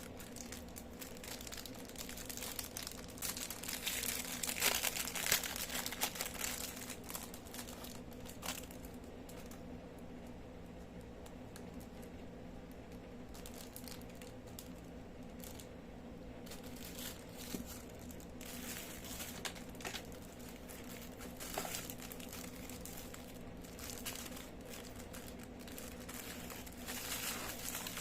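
Packaging from an online-shopping parcel being handled and opened, crinkling and rustling with some tearing, in irregular spells that are busiest from about three to eight seconds in and again near the end, over a faint steady hum.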